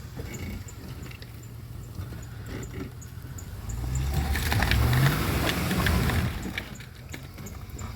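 SUV engine running low, then revving up and growing louder for a couple of seconds before easing back, with a hiss of noise as it pulls.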